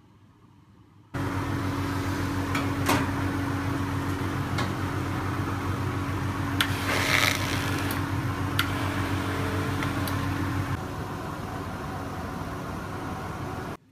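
Vacuum forming machine running: a steady motor hum and rush with a few sharp clicks along the way. It starts suddenly, steps down a little near the end, then cuts off.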